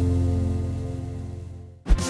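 Background music: a held chord that slowly fades, then a new piece cuts in sharply near the end.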